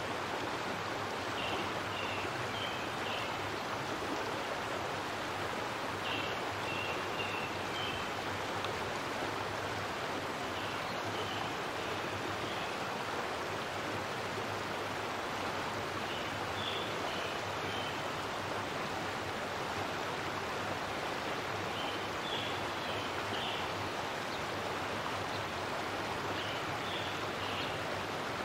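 Steady rushing noise of running water, like a stream, with a short high chirping call about every five seconds.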